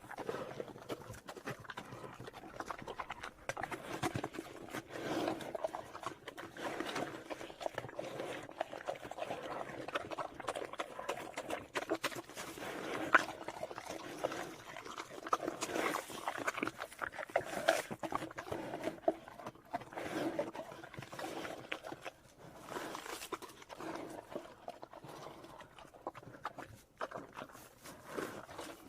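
A bear making a continuous run of short, irregular animal sounds, with scattered sharp clicks.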